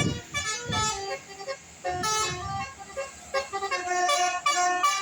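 Bus 'telolet' horn, a multi-trumpet air horn, playing a quick tune of changing notes as the bus passes. There is a short break about a third of the way through before the tune starts again.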